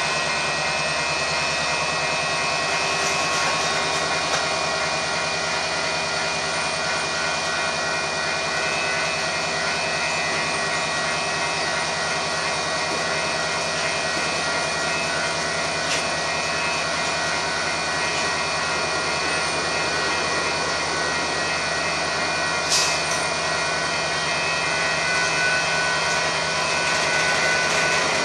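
Several Union Pacific diesel-electric locomotives running as the train moves slowly past: a steady engine drone with a high, even whine. A single sharp click comes about three-quarters of the way through.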